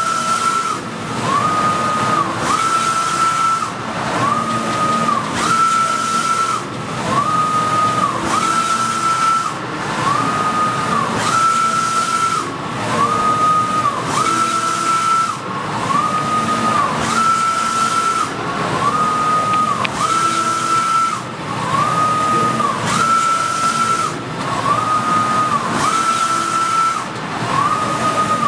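Softjet-K wide-format printer's Kyocera print-head carriage shuttling back and forth across the media. Its drive whine rises, holds and falls on each pass, about once every second and a half, pitched slightly higher on every other pass, over a steady hiss.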